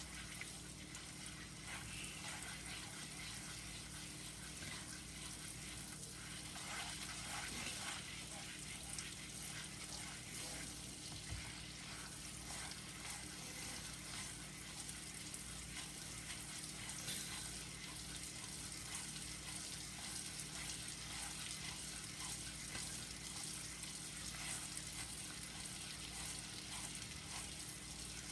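Butter and sugar sizzling and bubbling steadily in a nonstick frying pan as they caramelize, stirred with a silicone spatula.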